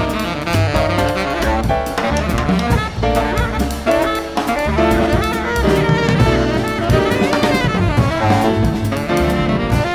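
Jazz quartet playing: saxophone carrying the melody in held, stepping notes over drum kit, with piano and double bass underneath.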